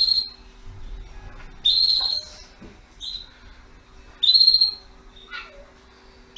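A caged bird calling repeatedly: four or five short, high whistled calls, about a second or two apart.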